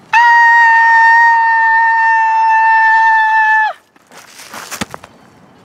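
A child's high-pitched scream held at a steady pitch for about three and a half seconds, cut off sharply, then a brief rustle and a single knock as a plastic doll drops onto wood-chip mulch.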